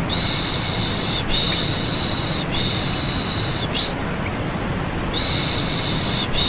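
Steady white noise with a rhythmic "shh" shushing laid over it for soothing a baby to sleep. Each shush lasts about a second; three come back to back, a longer pause follows just after the middle, then the shushing resumes.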